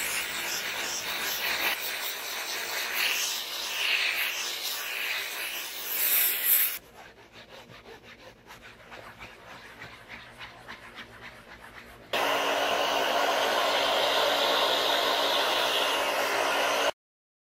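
Steam cleaner hissing while a cloth scrubs a car's fabric headliner, with uneven swells. About seven seconds in it drops to quieter, quick rhythmic rubbing of the cloth wiping the headliner by hand, and about twelve seconds in a loud steady hiss takes over and cuts off suddenly near the end.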